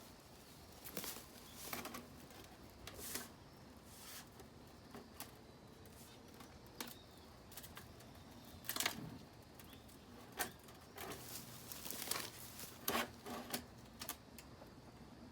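Irregular light clicks, knocks and short scrapes, a few every couple of seconds, with the strongest ones around the middle and near the end.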